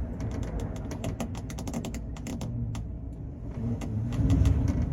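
Large car ferry under way: a steady low rumble that swells about four seconds in, with a rapid scattering of sharp clicks and creaks on top.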